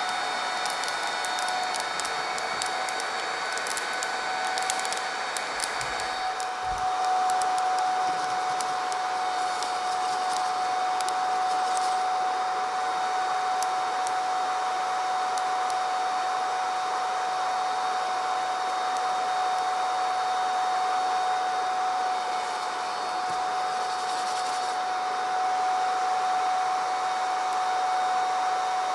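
KAKA-F001 coffee bean cooler's electric fan running steadily, with a steady whine over a rush of air drawn through the mesh roasting drum sitting in its bowl. The rush of air grows louder about seven seconds in. Scattered sharp crackles sound during the first dozen seconds.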